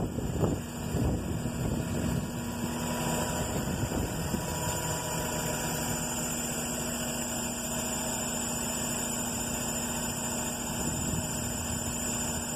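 Tractor engine idling steadily, with a constant low hum.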